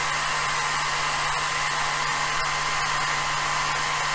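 Steady whir of the Jinsoku LC40 laser module's small cooling fan running with the machine idle, with a constant low hum and faint thin high tones under it.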